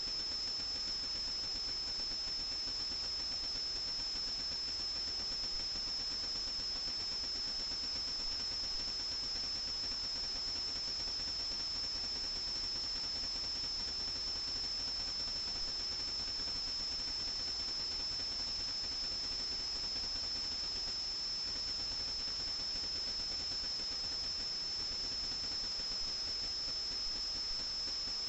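Steady electronic hiss with a constant high-pitched whine that never changes in pitch or loudness.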